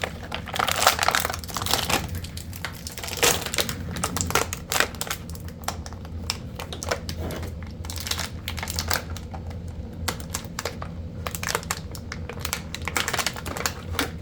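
Plastic packaging crinkling and rustling, with many short clicks and taps of small plastic parts being handled.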